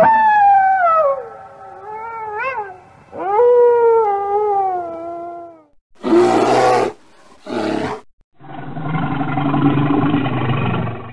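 Wolf howling: two long howls, the first sliding down in pitch with a short wavering rise midway, the second rising quickly and then falling slowly. A bear then growls in three rough bursts, the last and longest lasting about two and a half seconds.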